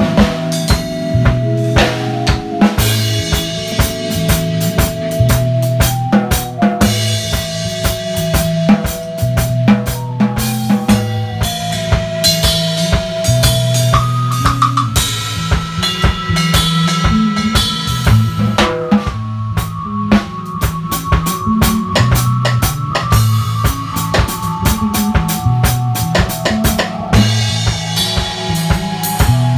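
Dub music: a steady drum-kit beat of bass drum and snare hits, under a bass line that moves between notes and held melody notes that step up and down in pitch.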